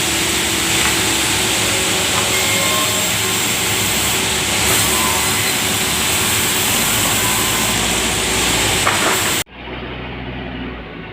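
Sawmill saw cutting through a large log: a loud, steady noise. About nine seconds in it stops abruptly and a quieter low hum takes over.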